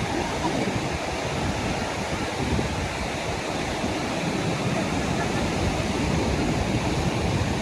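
Sea surf washing up a sandy beach: a steady rushing noise with no distinct breaks.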